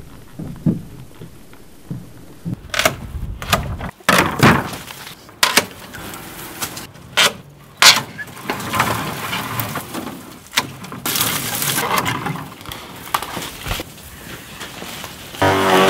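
Dry woody butterfly bush stems snapping and cracking one after another as they are cut with loppers, with twigs rustling between the snaps. Near the end a loud steady droning sound cuts in.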